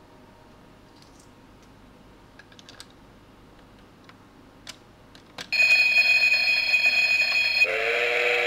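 Toy train coin bank: a few small plastic clicks as its button is pressed, then its speaker starts a loud, steady electronic ringing, like an alarm bell, for about two seconds, followed by a lower held electronic tone.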